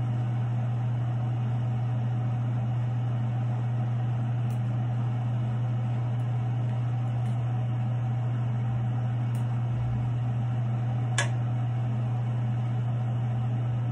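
Steady low hum of a fan or similar room appliance, with one sharp click about eleven seconds in.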